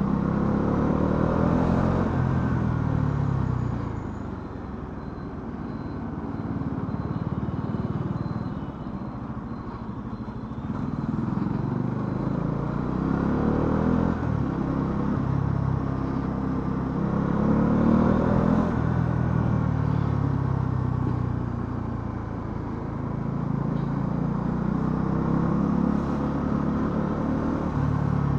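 Bajaj Dominar 400's single-cylinder engine under way, its pitch rising and falling several times as the bike accelerates through the gears and eases off.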